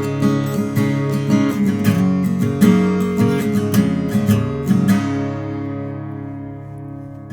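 Martin 00-28 Modern Deluxe acoustic guitar, tuned a half step down, played with a run of picked notes and chords. About five seconds in, a chord is left ringing and fades away, and playing starts again right at the end.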